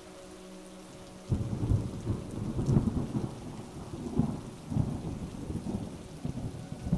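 Thunderstorm ambience: steady rain, then a long rolling thunder rumble that breaks in about a second in and keeps swelling and ebbing.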